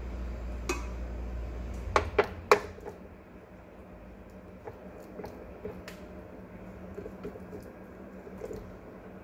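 Kitchen handling sounds: a sharp clink, then three louder clinks and knocks in quick succession about two seconds in, then light scattered ticks. A low hum stops at about the same moment.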